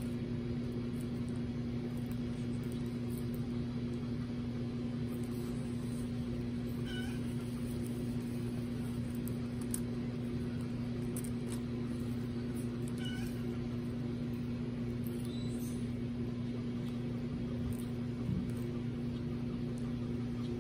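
A steady low hum that never changes in level. A short faint chirp recurs about every six seconds, with scattered faint crisp ticks in the middle stretch.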